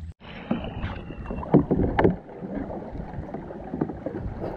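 Kayak paddling on calm water: paddle blades dipping and splashing at an irregular pace, with a few sharper splashes about a second and a half in.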